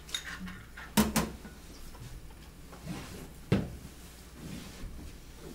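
Utensils knocking against a small ceramic bowl and a saucepan as miso paste is worked into the soup: a few sharp clacks, the loudest about a second in and another past three seconds.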